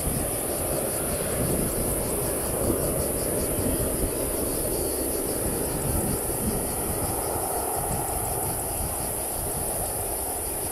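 The four GEnx jet engines of a Boeing 747-8 give a steady, distant rumble as the airliner rolls out and slows after landing. A steady high insect buzz runs over it.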